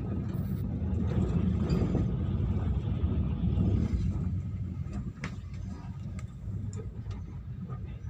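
Red Arrow passenger carriage running at speed, heard from inside: a steady low rumble of the wheels on the rails, swelling for a few seconds in the first half, with a few sharp clicks after about five seconds.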